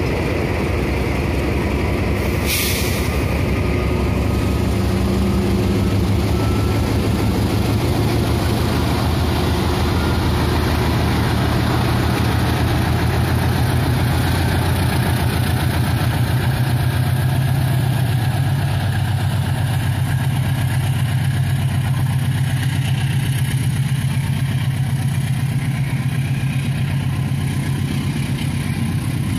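Diesel locomotive engine running steadily as a passenger train pulls away and rolls past, a low engine drone that holds at an even level, with a brief hiss about two and a half seconds in.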